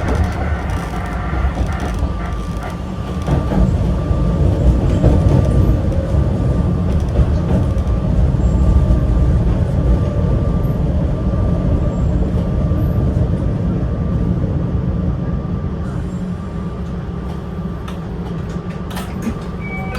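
A 260-series narrow-gauge electric railcar with nose-suspended traction motors running under power, pulling away. Its motors and wheels make a heavy, continuous rumble, with a faint steady whine. The rumble builds to a peak about nine seconds in, then eases off.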